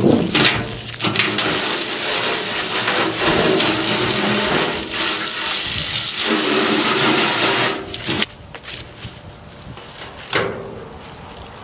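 Water splashing hard into an upended wheelbarrow tub as it is rinsed out, a steady rush that stops about eight seconds in. A thump near the end as the wheelbarrow is tipped back down onto its wheel.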